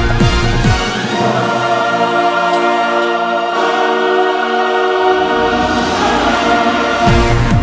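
Background music: the drum beat drops out about a second in, leaving held sustained chords, and comes back in near the end.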